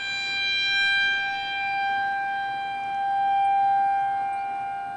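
Outdoor tornado warning siren sounding at a steady pitch, its loudness swelling and fading twice.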